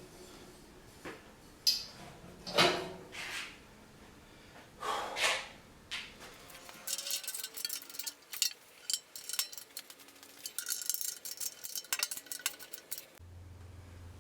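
A few separate knocks, then several seconds of rapid, light clinking and clattering, like hard small objects being handled.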